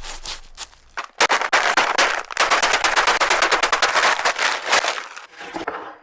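Food crackling and spattering in hot oil in a pan: a dense, rapid crackle that starts suddenly about a second in and fades near the end.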